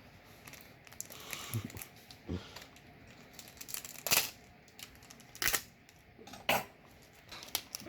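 Foil booster pack wrapper crinkling and rustling as it is handled and pulled open, with three sharp crackles a little past the middle.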